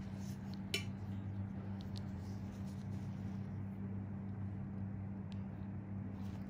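Steady low hum, with a few faint clicks and one sharper clink about a second in.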